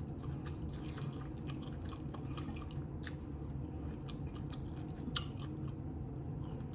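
Close-miked chewing: a person eating with small, irregular wet mouth clicks, over a steady low background hum.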